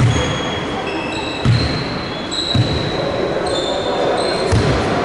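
A basketball thumping on the court four times at uneven intervals, with players' shoes squeaking sharply and briefly on the floor, over spectators' chatter.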